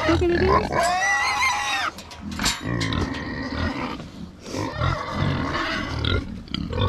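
Kunekune pigs grunting close by, with a long high-pitched cry about a second in that rises and then falls.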